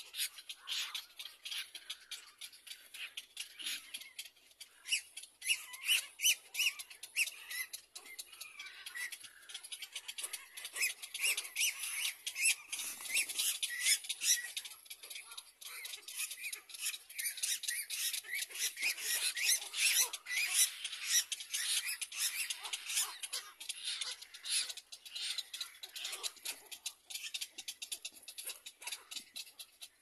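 Little black cormorant chicks in the nest giving rapid, high-pitched squeaking begging calls, many a second, swelling and fading in bouts as the adult bends over them.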